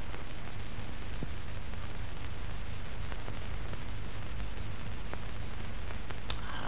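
Steady low hum and hiss of an old film soundtrack, with a few faint clicks.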